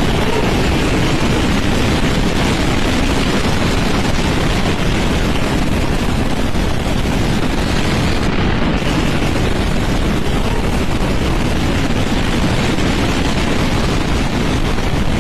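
Violent storm wind from a waterspout rushing and buffeting the microphone: a loud, steady roar with a heavy low rumble.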